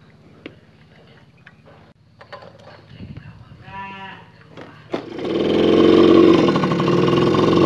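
Yamaha V75's small two-stroke engine running loudly and steadily as the bike moves off, starting suddenly about five seconds in. Before that there is only a faint low hum with a few clicks and, near the middle, one brief held tone.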